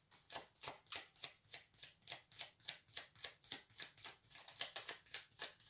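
Deck of tarot cards being shuffled in the hands: a faint, even run of soft card slaps, about five a second.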